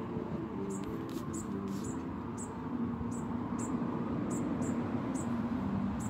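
Fledgling songbird peeping: short, very high-pitched peeps about twice a second, over a low steady hum.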